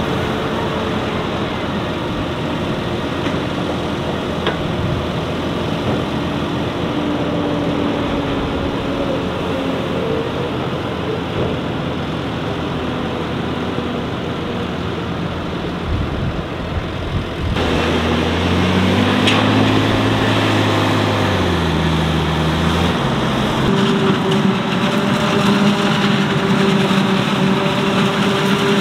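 Heavy farm machinery engines running steadily: tractors at a silage clamp while a trailer tips its load of chopped maize. About 17 seconds in the sound changes abruptly to a self-propelled forage harvester and its tractor working a maize field. Right after that change the engine pitch dips and comes back up, then settles into a louder steady drone.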